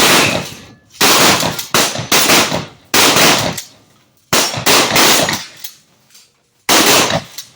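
Shotgun fire: a string of about nine loud shots in quick, irregular groups of two or three, each with a short echoing tail.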